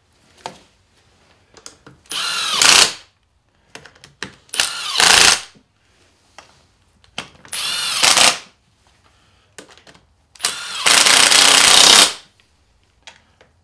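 Compact cordless impact driver on its low number-two setting, driving transfer case bolts in four separate bursts, each whining up in pitch with rapid hammering, the last and longest near the end. On this setting the bolts are left not fully tight, to be snugged down by hand.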